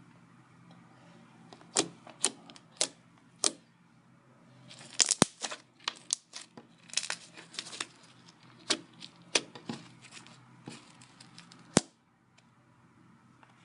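Homemade slime being squeezed and poked, giving sharp wet clicks and pops: a few single pops, then a dense crackly run in the middle, then scattered pops ending with one loud click.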